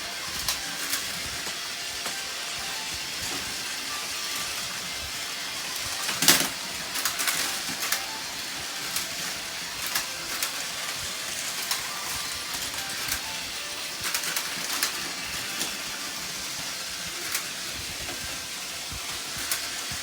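Plarail battery-powered toy trains running on plastic track, a steady whir with scattered clicks, and one sharp crash about six seconds in.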